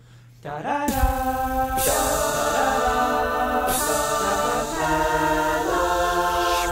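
An a cappella vocal group singing held chords, several voices together without instruments, moving to a new chord about every two seconds.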